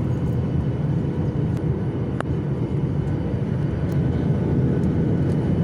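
Steady cabin noise of a jet airliner in flight, heard from inside the passenger cabin: an even rumble of engines and rushing air with a faint steady hum above it. One short click about two seconds in.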